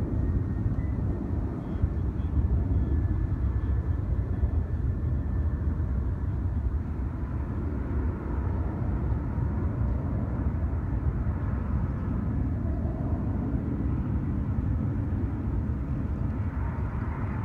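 Steady low rumble of distant jet airliners on final approach, heard outdoors over open ground with no distinct events.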